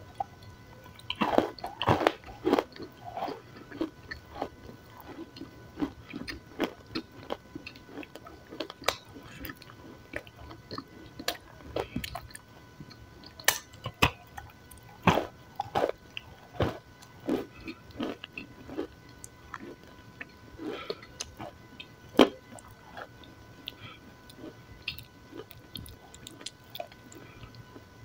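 Close-miked biting and chewing of a dry, crumbly pale patty. Crisp crunches and chewing noises come at irregular intervals, with a few sharper, louder bites among them.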